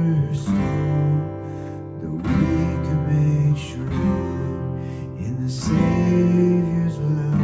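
Acoustic guitar strumming sustained chords, with a fresh strum every second or two: the instrumental introduction to a worship song before the singing comes in.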